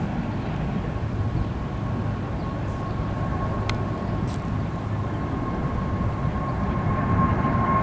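Boeing 777's twin turbofan engines climbing out after takeoff: a steady low rumble with a high whine held on one pitch, slowly growing louder toward the end.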